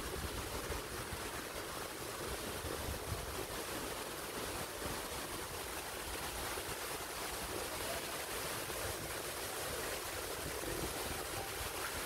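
Steady sound of flowing stream water, with low wind rumble on the microphone in the first few seconds.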